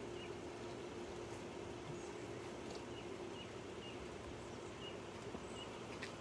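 Quiet outdoor ambience: a low steady background with small birds chirping faintly every second or so, and one sharp click near the end.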